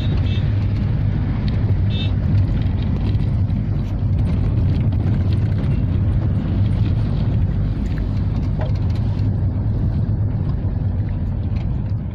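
Steady low engine and road rumble heard from inside a moving vehicle's cabin, with two brief high-pitched chirps in the first couple of seconds.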